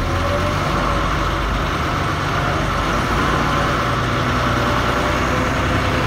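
A heavy vehicle's engine running steadily at low speed, heard from inside the cabin.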